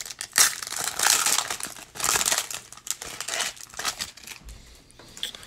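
Foil wrapper of a trading-card pack crinkling and tearing as it is ripped open by hand, in several bursts that tail off near the end.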